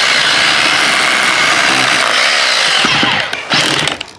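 Hammer drill running flat out, boring through stone and concrete under a slab. It eases off about three seconds in, runs again briefly, and stops near the end.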